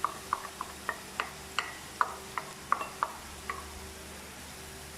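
Stirring spiced aromatics frying in butter in a pan: a utensil knocks against the pan in a run of short, ringing taps, two or three a second, stopping about three and a half seconds in, over a faint sizzle.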